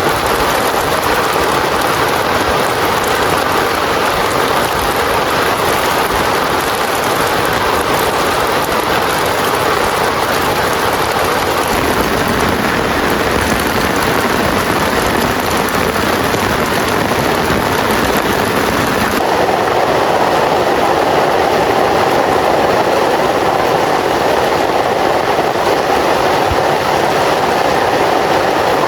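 Heavy rain falling steadily, a loud, even rushing hiss. About two-thirds of the way in its tone shifts slightly and it grows a little louder.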